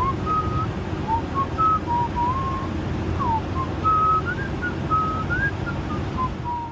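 Someone whistling a tune, one clear note after another with small slides between them, over the steady drone of a mini van's engine and road noise. Both stop abruptly near the end.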